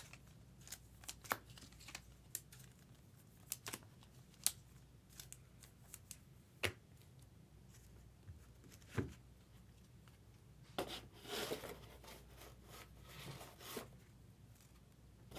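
Faint handling of trading-card packs and cards: scattered small clicks and crinkles, with a longer tearing, crinkling stretch about 11 seconds in.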